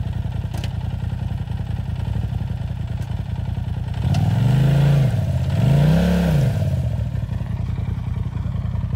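Polaris RZR side-by-side engine idling, then revved twice, about four and six seconds in, each rev rising and falling in pitch, as the machine tries to back out of the muddy water hole it is stuck in.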